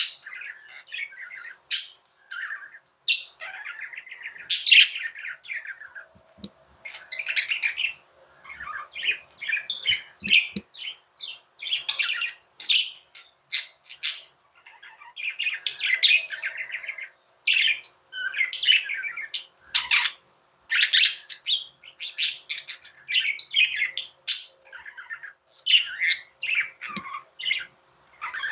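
Budgerigars chirping and warbling, a near-continuous stream of quick, varied short calls with hardly a pause.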